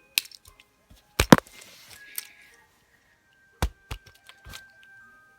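Scattered sharp clicks and knocks from a plastic fidget cube being handled and clicked, the loudest a quick cluster about a second in, then several more spaced out later. Faint steady tones sit underneath.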